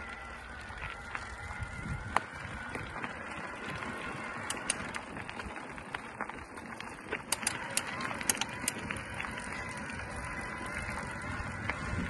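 A mountain bike in motion: tyres rolling on the trail, with a steady hiss and scattered sharp clicks and rattles that are thickest about two-thirds of the way through.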